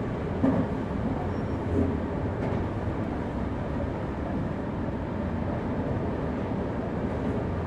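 Semboku Rapid Railway electric commuter train running along the track, a steady low rumble with two louder knocks, about half a second and two seconds in.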